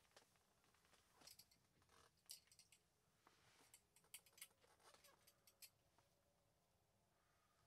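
Near silence broken by faint, scattered clicks and rustles from handling a short ice-fishing rod and its small spinning reel, dying away about six seconds in.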